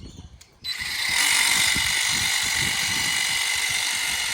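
Battery-powered Ego telescopic hedge trimmer switched on about two-thirds of a second in, then running steadily at full speed with a high, even whine from its motor and blades.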